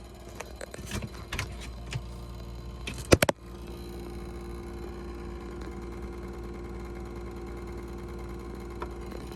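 Camper's newly replaced refrigerator running with a steady hum and a constant mid-pitched tone: the abnormal noise it has made since the new unit was installed. A few light clicks and rattles come in the first two seconds and a sharp double knock about three seconds in, after which the tone is stronger.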